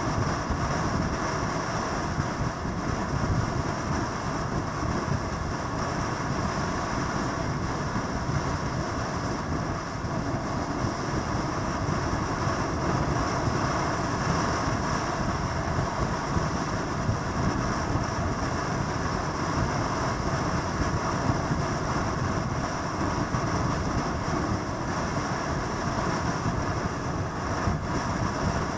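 Steady, unbroken drone of motorcycle engines.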